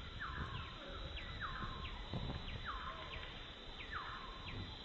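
Short chirps that fall in pitch, repeating two to three times a second over a low rumble.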